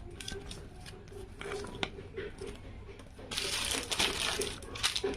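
Handling noise: crinkling and rustling with small clicks, swelling into a louder stretch of rustling for under two seconds about three seconds in.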